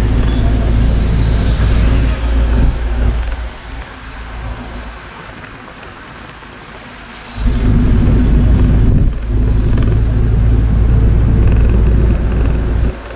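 Bus engine running with a heavy low rumble, dropping quieter for about four seconds in the middle and then loud again.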